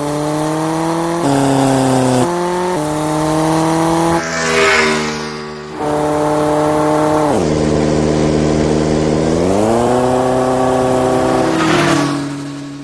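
Motorcycle engine running and revving, its pitch shifting in steps, dropping about 7.5 seconds in and rising again about 2 seconds later, with whooshes at about 4.5 seconds and near the end.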